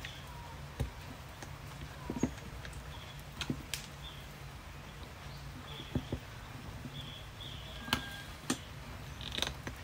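Irregular small clicks and taps of flat-blade screwdriver tips against the plastic knob and housing of a Sena 10C Pro headset as the knob is pried out of its seat, over a low steady hum.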